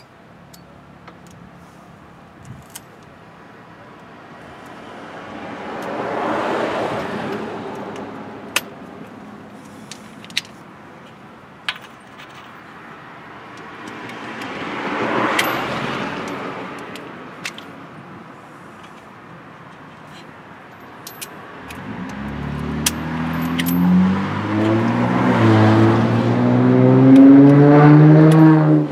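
Motor vehicles passing: two rise and fade away, then a louder one with a clear engine note draws close near the end. A few light clicks between them.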